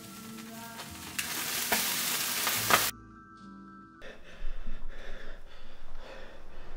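A loud hiss that swells for about two seconds and cuts off abruptly about three seconds in, followed by soft sustained music tones and then faint rustling and clicks.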